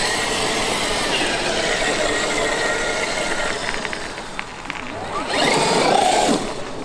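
Traxxas X-Maxx RC truck running: a brushless electric motor whine over a steady rushing noise, with a louder surge of gliding whine about five seconds in as it speeds up.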